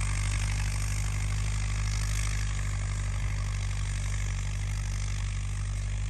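An engine running steadily at an even idle, loud and unchanging.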